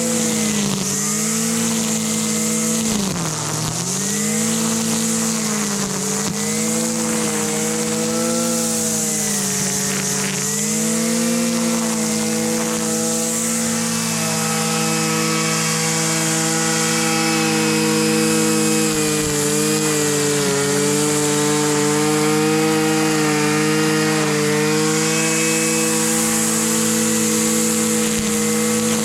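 Husqvarna 326 LD string trimmer's small two-stroke engine running, after its fuel line has been replaced. Its speed sags and recovers several times over the first dozen seconds, dipping deepest about three seconds in, then holds fairly steady.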